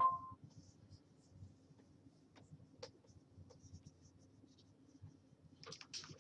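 Faint scratching and light tapping of a pen stylus on a graphics tablet, in short scattered strokes. A brief tone-like blip sounds right at the start.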